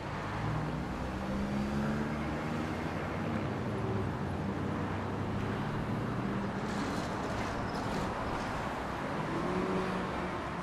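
Street traffic: motorcycle and car engines running and passing, with engine hum swelling again near the end as a motorcycle goes by.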